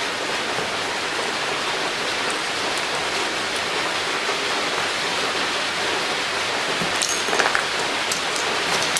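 Steady, even rain-like background hiss, with a few light clicks about seven seconds in and again near the end.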